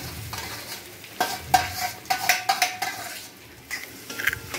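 A steel spatula scraping and knocking against a stainless steel kadai, stirring and mashing potatoes frying in oil over a light sizzle. The pan rings after the harder knocks, which come mostly in a run about a second in and again near the end.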